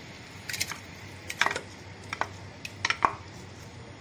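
A wooden spoon scraping and tapping against a ceramic plate and the rim of a clay cooking pot, knocking paste off into the pot: four short clusters of clacks about a second apart.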